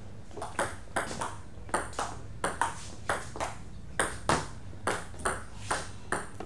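Table tennis rally: the ball clicks sharply off bats and table in quick alternation, about two to three hits a second.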